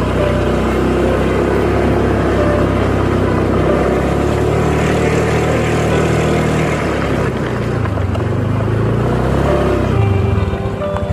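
Motorcycle engine running under way uphill, its pitch shifting with the throttle from about two-thirds of the way through, over a steady rush of wind and road noise.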